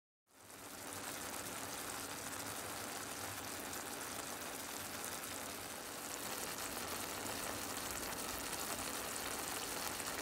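Chopped tomatoes in olive oil sizzling and bubbling in a frying pan: a steady crackling hiss that starts suddenly out of silence just after the start.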